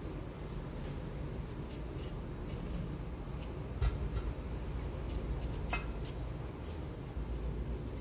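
A kitchen knife cutting and scraping pieces off a raw vegetable held in the hand, making soft scrapes and small clicks. There is a sharper knock about four seconds in and another near six.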